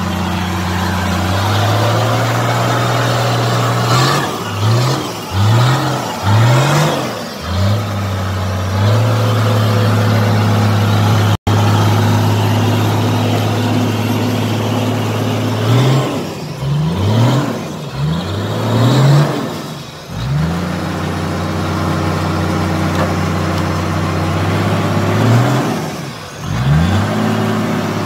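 Toyota Land Cruiser hardtop's engine running under load as it is driven through deep mud, revved repeatedly in short bursts in several clusters, with steady stretches in between, while its tyres spin in the mud.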